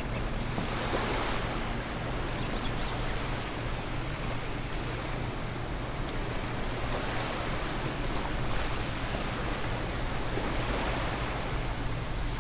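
Steady rushing noise like surf or wind, with a low hum beneath and a few faint high chirps.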